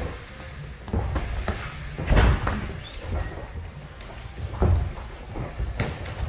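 Irregular thuds and knocks from two boxers sparring in a ring: feet shuffling and stamping on the canvas and padded gloves landing. The loudest thump comes about two seconds in.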